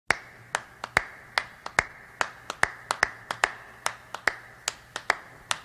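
Finger snaps in a steady rhythm, about three a second, some falling in quick pairs, over a faint steady hum.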